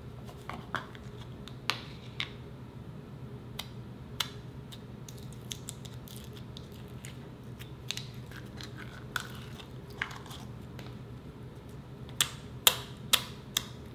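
Clear slime being handled: the snap of a plastic tub's lid being prised off, then sticky clicks and pops as fingers press and pull the slime. Near the end come four louder pops in quick succession as a finger pokes the slime.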